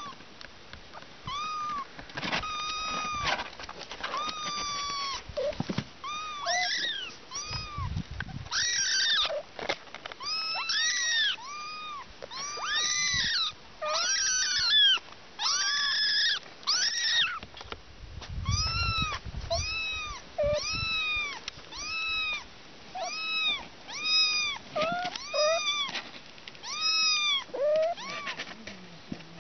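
Young kittens mewing over and over: short, high-pitched calls that rise and fall, about one a second, sometimes overlapping.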